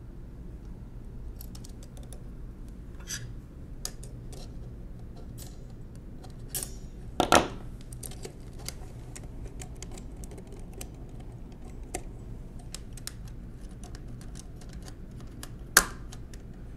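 Metal keys and bars of a 1920s Monroe Model K mechanical calculator's keyboard clicking and clinking as they are handled and fitted together, with scattered light ticks and two louder clacks, one about halfway through and one near the end.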